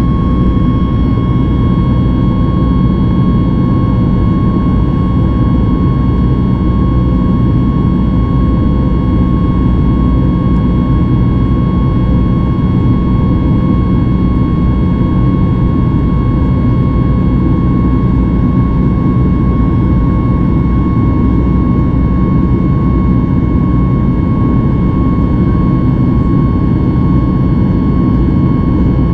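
Cabin noise of a Boeing 737 MAX 8 climbing after takeoff, heard from a seat by the wing: its CFM LEAP-1B turbofan engines and the airflow give a steady low roar with a steady whine over it.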